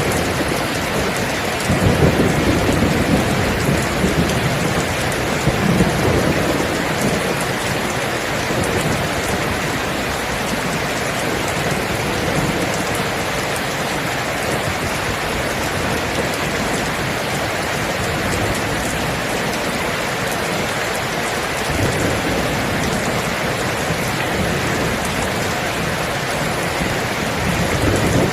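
Steady heavy rain with rolls of thunder, the loudest a low rumble from about two to seven seconds in and a fainter one a little before the end.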